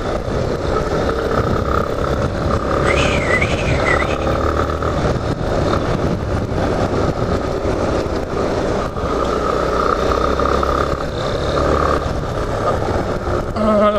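Yamaha Lander XTZ 250's single-cylinder engine running while the motorcycle is ridden, under steady road and wind noise. A short wavering higher-pitched sound joins in about three seconds in.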